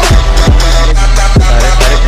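Loud background music with heavy bass and deep, booming kick drums that drop in pitch.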